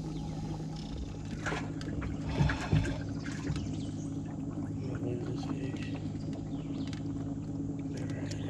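Boat ambience on the water: a steady low hum with water sloshing and a few light knocks a second or two in.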